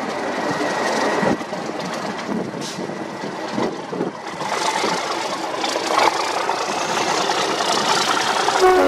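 Class 37 diesel locomotive's English Electric V12 engine running as the locomotive rolls slowly past, with a steady high whistle over the first second or so.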